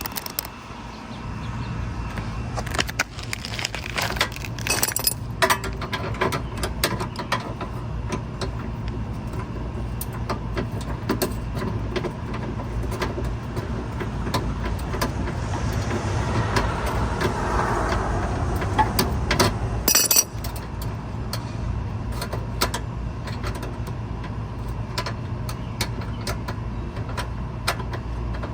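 Scattered metallic clinks and knocks of parts and tools being handled, over a steady low hum, with a sharp louder clack about 20 seconds in.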